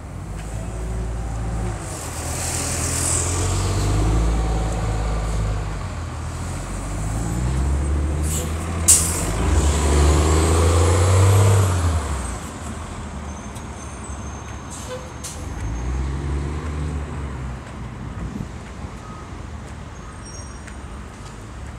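Heavy road vehicle's engine running and changing pitch as it moves off and passes, louder through the first half, with a short sharp air-brake hiss about nine seconds in.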